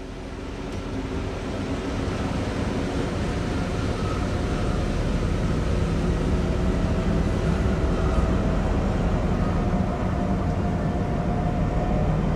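MÁV M62 diesel locomotive, with a two-stroke V12 diesel engine, running with a heavy low rumble and a faint whine that edges slightly up in pitch. It grows louder over the first couple of seconds, then holds steady.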